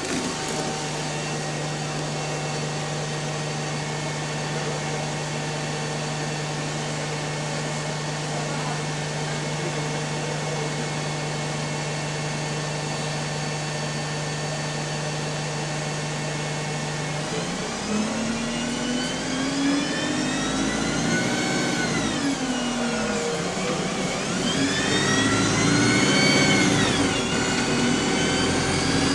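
Bus engine idling steadily, then the bus pulling away: the engine and Voith automatic gearbox whine climb in pitch, drop at a gear change, climb again and fall away.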